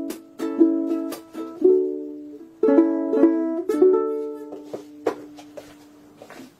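Ukulele strummed in chords, a strum roughly every half second, then a final chord left to ring and fade away over the last two seconds or so.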